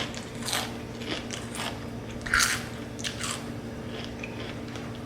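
Close-miked chewing of crunchy food: a string of crisp crunches as the food is bitten and chewed, the loudest about halfway through.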